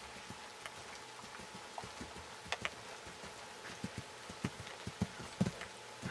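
Soft hoofbeats of a horse moving over a sand riding arena: low, muffled thuds that come more often in the second half, about two a second, over a steady hiss, with a few sharp clicks.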